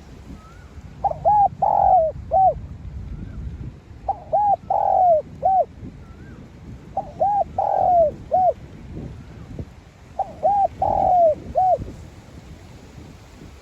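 Spotted dove cooing: four repeated phrases about three seconds apart, each a quick run of short coos with one longer note in the middle.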